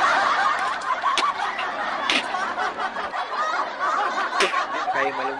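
Laughter from many voices at once, a dense, unbroken chorus at an even level.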